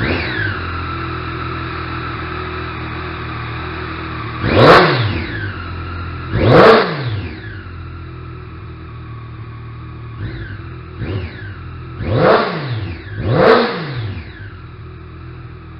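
2014 Triumph Daytona 675's 675 cc inline three-cylinder engine on its stock exhaust, idling steadily and blipped by hand: a short blip at the start, two full revs, two small blips, then two more full revs, each rising sharply and dropping straight back to idle.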